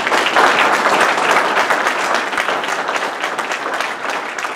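Audience applauding, a dense crowd of claps that is loudest at the start and slowly tapers off.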